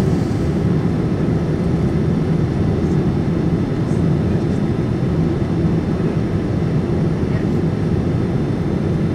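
Steady low rumble and rush of a Boeing 787-9's cabin on approach: airflow over the fuselage and the Rolls-Royce Trent 1000 engines at reduced thrust, heard from a window seat over the wing.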